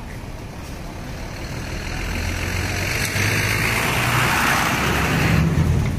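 Light cab-over truck driving past close by: its engine and tyre noise grow louder over the first few seconds, peak about five seconds in, then drop off sharply.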